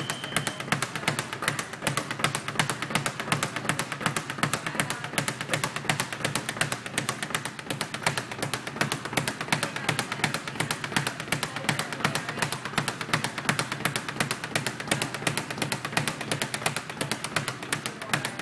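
Speed bag being punched in a fast, steady rhythm, the bag striking the rebound platform several times a second.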